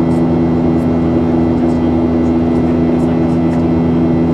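Boeing 737-800 cabin noise in the climb after takeoff: the CFM56-7B turbofans and the rushing airflow make a steady, loud drone with a constant low hum.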